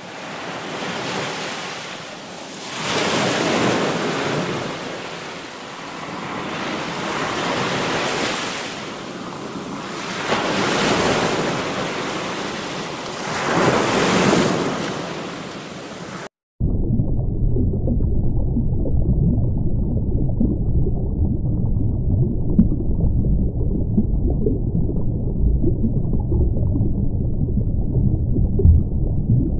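Ocean waves washing in slow surges, swelling and fading about five times. A little past halfway this cuts off abruptly to a steady, muffled low rumble of underwater ambience.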